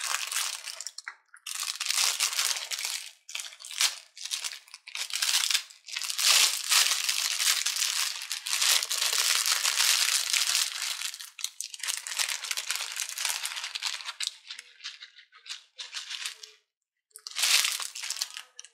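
A plastic packet of small foam balls being shaken and squeezed to pour the balls out, a dry rustling in irregular bursts with short pauses.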